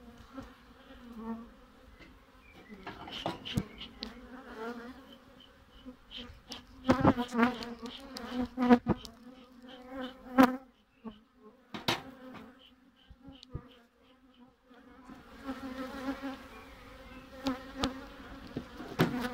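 Honeybees buzzing steadily over an opened hive, a continuous hum. Several sharp knocks and clicks in the middle, from the hive and bellows smoker being handled.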